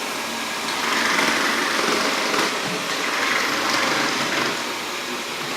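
Xiaomi Mi Robot Vacuum running: a steady whir of its suction fan and brushes, swelling and easing slightly as it moves about.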